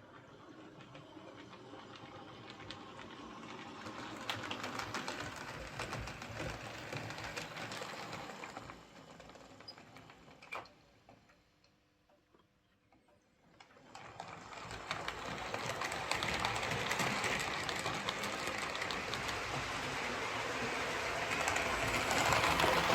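Hornby OO gauge Class A1 model locomotive running on the layout track, its small motor whirring and its wheels running on the rails. The sound builds, fades almost away in the middle with a single click, then builds again, loudest near the end. It is running smoothly after a new pickup plate and raised rear pony truck wheels.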